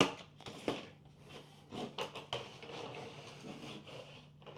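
A sharp knock, then another under a second later, followed by irregular clattering and rustling as loose junk items are picked through and set down.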